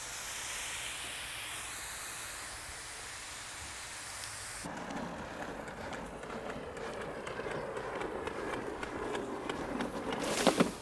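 Water spraying from a garden hose nozzle in a steady hiss, which stops abruptly about five seconds in. Faint rustling with small ticks follows.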